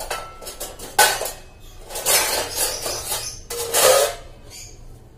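Washed dishes and utensils clinking and clattering as they are handled and laid out on a kitchen counter to dry, in several bursts, the loudest just before four seconds in, then quieter near the end.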